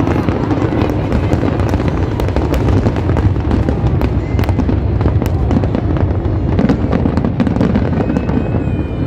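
Aerial firework shells bursting in rapid succession: a continuous low rumble of booms laced with many sharp crackles, easing off slightly near the end.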